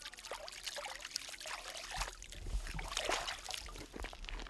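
Water splashing and trickling at the water's edge with scattered small clicks and knocks, irregular and busiest in the second half.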